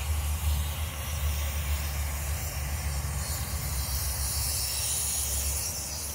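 Garden hose spraying water onto a dog's coat, a steady hiss, over a low steady rumble.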